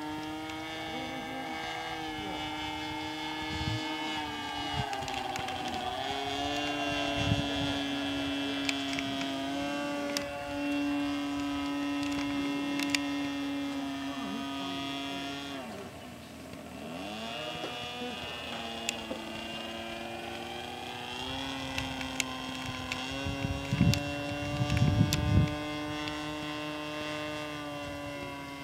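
Engine and propeller of a Seagull Extra 300S radio-controlled model aerobatic plane, running steadily in flight. The pitch rises and falls as it passes and changes throttle, dropping and fading about halfway through before building again. A few low thumps come near the end.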